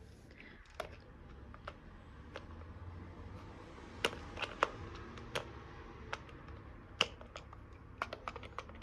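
Toy dishes and play food clicking and tapping as they are handled: scattered sharp taps at an uneven pace, the loudest about four seconds in and again about seven seconds in, with a quick cluster near the end.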